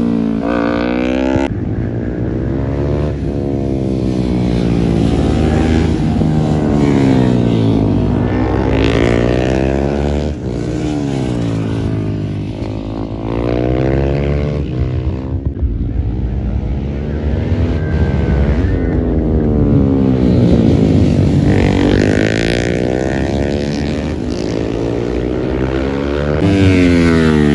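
Sport bike engines at high revs going past on a race track, their pitch rising and falling over and over as the bikes accelerate, shift and slow through the corner.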